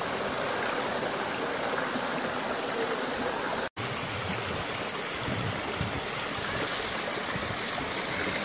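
Shallow rocky stream, water running steadily over stones and a small cascade. The sound drops out for an instant a little under four seconds in.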